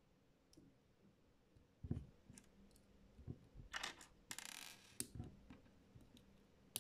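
Small plastic Lego pieces being handled and pressed together on a tabletop: a knock about two seconds in, a stretch of rustling plastic pieces in the middle, and a few sharp clicks, the sharpest near the end.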